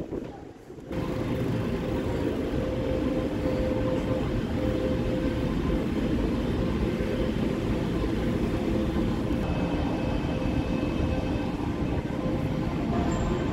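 Steady low rumble with a faint steady hum, the background noise of an underground metro station corridor; it sets in about a second in after a brief quieter moment.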